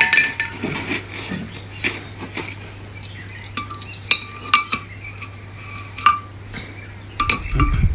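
Metal tools and gearbox parts clinking against each other during hand work on a center pivot gearbox: a scattered series of sharp, ringing metallic clinks over a steady low hum.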